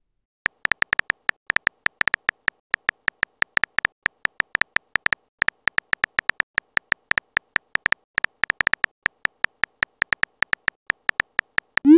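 Keyboard typing sound effect of a chat-story app, one short beep-like tick per typed letter, several a second with a couple of brief pauses. A short rising swoop comes right at the end.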